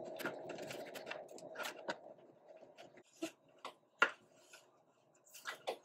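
Fingers rubbing and pressing self-adhesive LED strip down onto a light fixture's reflector: a dense scraping rub for about two seconds, then scattered light taps and clicks.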